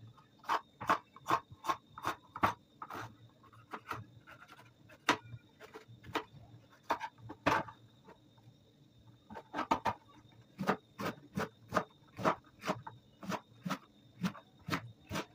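Kitchen knife chopping green pepper on a plastic cutting board: sharp, irregular knocks a few times a second, with short pauses between runs.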